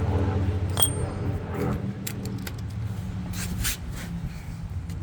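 Metal tools and bolt hardware clinking and scraping, with a sharp click and short ringing ping about a second in, followed by scattered clicks and brief scrapes, over a steady low hum.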